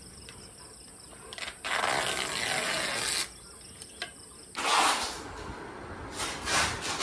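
Steady high chirring of insects, broken by a loud rush of noise lasting about a second and a half near the start and shorter bursts of noise later.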